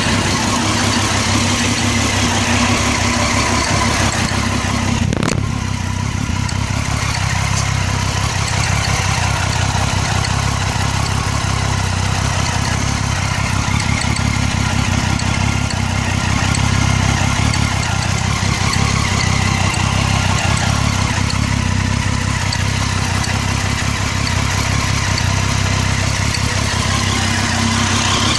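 Triumph Street Triple R's 675 cc inline three-cylinder engine idling steadily through its stock exhaust, with one sharp metallic knock about five seconds in. The knock comes from the exhaust system, which the owner wonders may be normal heat expansion and contraction.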